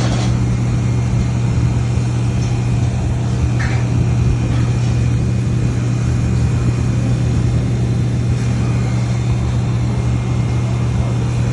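Loud, steady machinery hum, a constant low drone with even noise over it, from mains-powered electric equipment running without change.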